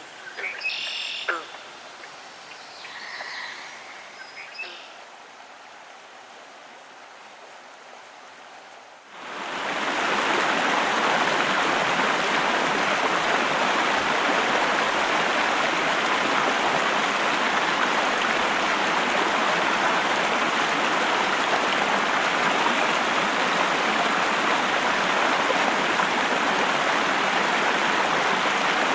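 Waterfall water rushing in a loud, steady, even hiss that starts abruptly about nine seconds in. Before it there is a quieter stretch with a few short, high, bird-like chirps.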